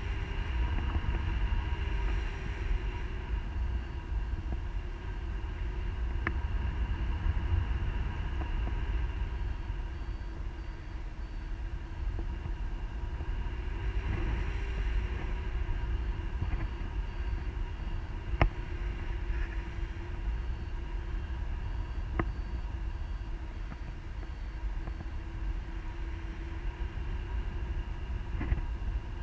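Wind rushing over the camera's microphone on a tandem paraglider in flight: a steady low rumble, with a few sharp knocks in the second half.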